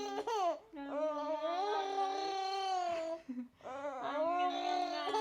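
Baby making long drawn-out fussing, babbling vocal sounds in two stretches, with a short break about three seconds in.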